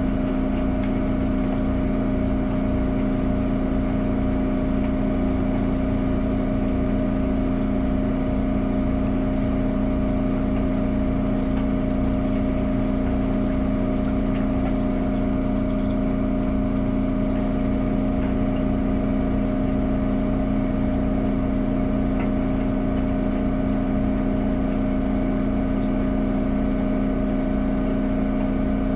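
Miele Novotronic W921 front-loading washing machine running with a steady, unbroken hum.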